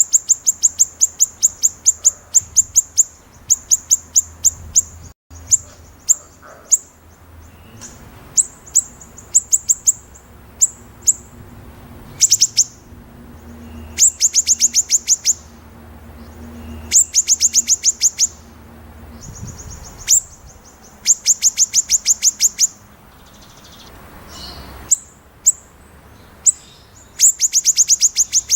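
White-rumped shama (murai batu) singing rapid 'besetan' phrases: bursts of sharp, high, identical notes fired off several per second, repeated again and again with short pauses between them.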